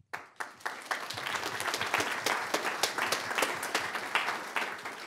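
Auditorium audience applauding: many hands clapping, swelling after a sudden start and fading away near the end.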